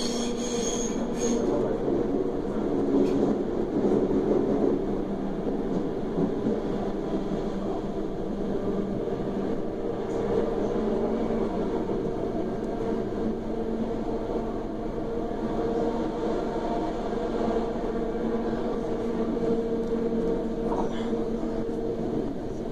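DB Class 420 (ET 420) electric multiple unit running, heard from inside the car: a steady hum with a couple of lasting tones from the electric drive over the rumble of the running gear.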